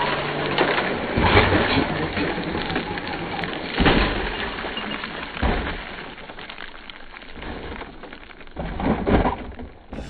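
Traxxas X-Maxx RC monster truck on loose gravel: tyres spraying and crunching stones, with a few heavy crunching impacts as it jumps, lands and tumbles. The noise dies down as it comes to rest upside down, with another short burst of gravel crunching near the end.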